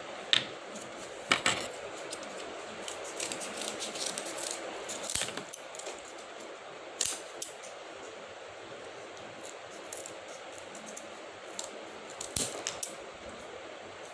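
Scissors cutting cardboard: irregular sharp snips and clicks in clusters, the loudest near the start and near the end, over a steady background hiss.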